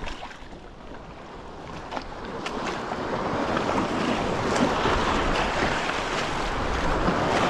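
Sea surf washing against the shoreline rocks, with wind buffeting the microphone; the rushing noise swells steadily louder over the first few seconds, with a few faint clicks.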